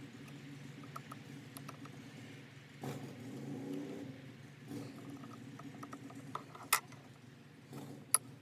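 Small clicks and ticks of metal on metal as brass tumblers and other small parts are fitted back into a chest lock with tweezers, with two sharper clicks near the end, over a faint steady low hum.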